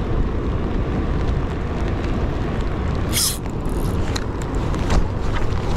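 Steady low wind noise buffeting the action-camera microphone, with a brief hiss-like rustle about three seconds in and a few light ticks near the end.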